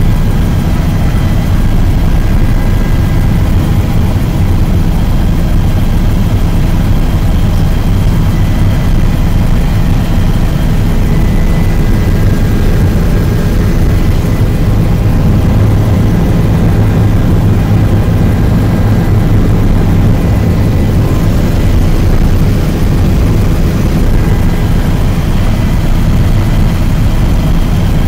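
Helicopter in flight heard from inside the cabin: a loud, steady drone of rotor and engine with a faint high whine over it.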